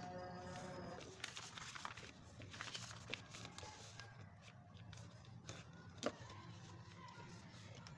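Sheet of paper being handled and folded by hand: faint crinkles and scattered ticks, with one sharper tap about six seconds in, over a steady low hum. Background music ends about a second in.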